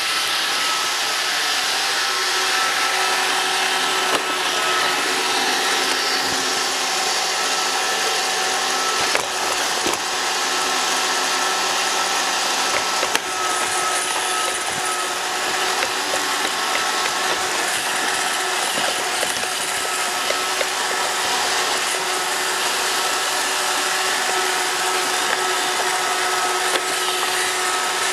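Roomba robot vacuum running: a steady motor whine with several held tones over a brushing hiss, with a few light clicks.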